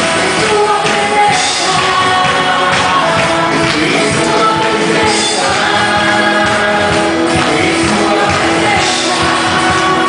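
A band playing a song live, with voices singing over it and drums keeping a steady beat, in a large hall.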